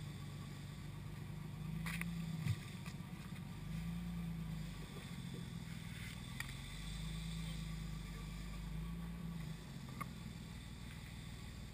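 A vehicle engine running steadily, its pitch stepping up and down a few times, with a few short clicks or knocks, the sharpest about two and a half seconds in.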